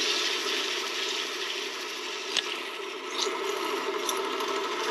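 Bench drill press running with an SU carburettor dashpot spinning in its chuck while sandpaper is held against it: a steady motor hum under a hissing scrape of abrasive on the metal, with a faint click about two and a half seconds in.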